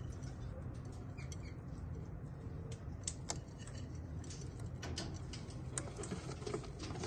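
Light scattered clicks and scratches on wood from a parrot shifting about inside a wooden nest box, over a steady low hum.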